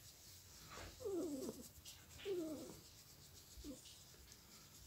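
Yorkshire terrier grumbling with pleasure while its ears are massaged: two drawn-out moans that slide down in pitch, then a short one.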